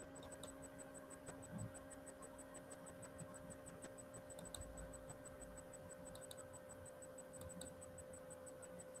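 Near silence: faint steady electrical hum with a rapid, faint high ticking, and a few soft clicks scattered through.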